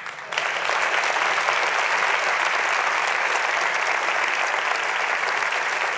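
Large audience applauding, breaking out suddenly at the start and holding steady.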